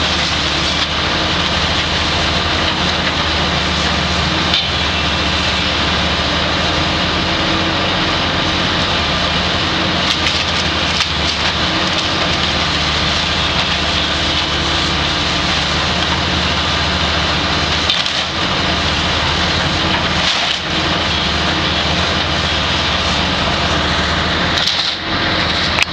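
Kobelco 200 excavator's diesel engine running steadily under load while its bucket tears into burnt wooden framing, with wood splintering and cracking throughout and a few sharper cracks.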